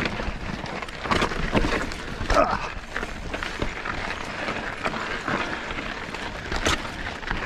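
Mountain bike riding over a rocky dirt trail: a steady rough crunch of tyres on rock and gravel, broken by frequent sharp knocks and rattles as the bike hits rocks.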